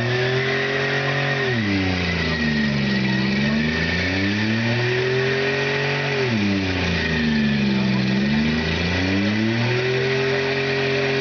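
Demolition derby car's engine revving hard during a tyre-smoking burnout. The revs climb and hold high three times, dropping back between, roughly every five seconds.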